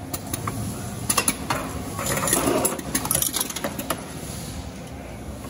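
Microcanner in-line canning machine running with water: aluminium cans clinking and clicking as they move through the conveyor, filler and seamer, over a steady machine hum. A cluster of sharp metallic clicks and a brief rushing burst come about two seconds in.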